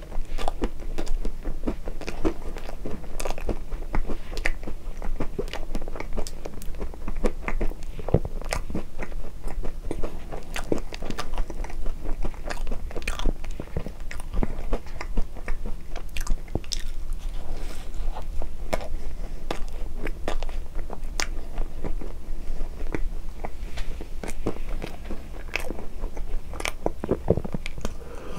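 Close-miked chewing of a mouthful of soft cream-filled bread: a steady run of wet mouth clicks and smacks.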